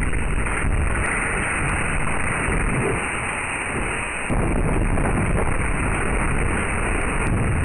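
Tornado winds, a steady heavy roar with deep rumble, growing louder about four seconds in.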